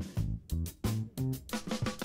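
Background music with a drum-kit beat and bass.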